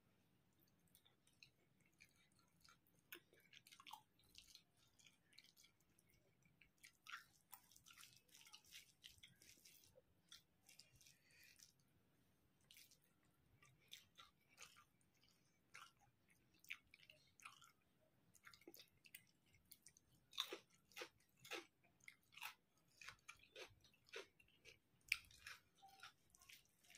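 Faint chewing of a mouthful of rice and curry, heard as scattered short clicks and smacks of the mouth that come and go in clusters.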